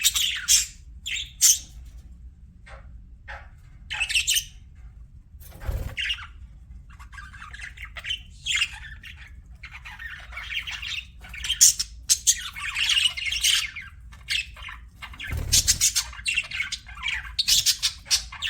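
Budgerigars chirping and chattering in irregular bursts of short, high squawks. Two dull low bumps are heard, about six seconds in and again past fifteen seconds.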